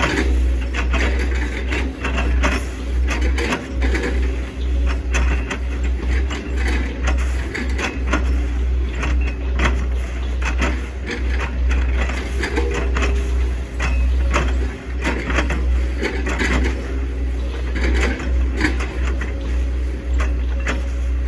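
Hitachi ZX110 MF excavator's diesel engine running under load with a constant low rumble, overlaid by frequent irregular knocks and cracks as the machine works through oil palm trunks.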